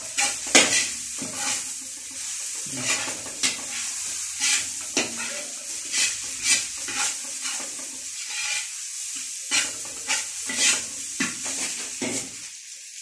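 A seafood mix sizzling as it is stir-fried in a large wok over a gas flame. A long-handled spatula scrapes and knocks against the pan at an irregular pace, about once or twice a second. The stirring and sizzle ease off near the end.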